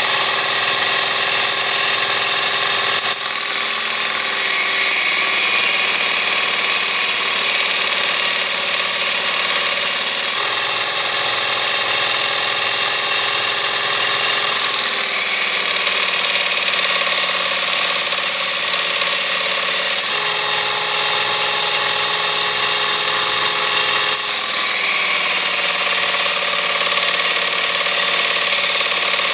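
Miniature abrasive belt sander's small DC motor running with the belt spinning, as a small hand tool is sanded against the belt. It hums steadily with a whine, and its pitch and tone shift several times.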